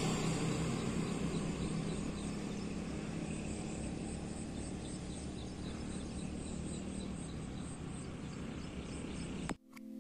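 Outdoor roadside ambience: a steady low rumble and hiss with a run of faint, evenly repeating high chirps. It cuts off suddenly near the end.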